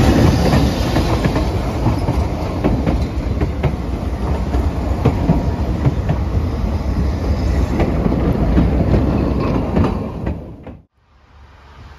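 Narrow-gauge steam train, Ffestiniog Railway locomotive No 4 Palmerston and its vintage carriages, rolling past close by: a steady loud rumble with many sharp wheel clicks over the rail joints. The sound cuts off abruptly near the end to a faint hiss.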